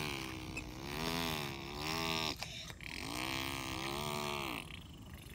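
Make-believe engine noise for a toy tractor being pushed through dirt: two long wavering, pitched drones, the first running a couple of seconds and the second stopping about three quarters of the way through.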